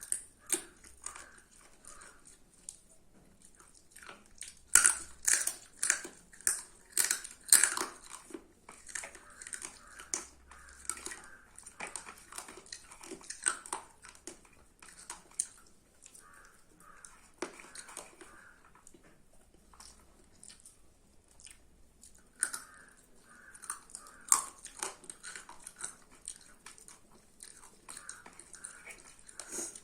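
Close-up chewing and wet mouth smacks of a person eating chicken curry and rice: a steady string of short, sharp clicks and squelches, with a run of louder smacks about five to eight seconds in.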